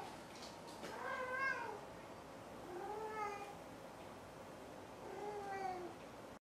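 Domestic cat meowing with its head inside a cardboard box: three drawn-out meows about two seconds apart, each rising then falling in pitch.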